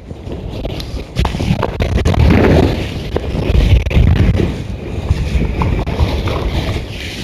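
Storm-force wind, gusting up to about 160 km/h, buffeting the microphone in a heavy low roar. It swells and eases in gusts, with crackling rattles, and picks up sharply about a second in.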